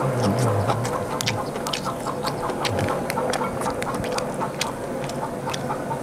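A person chewing food with mouth clicks and smacks, and a low hummed 'mm' in the first second.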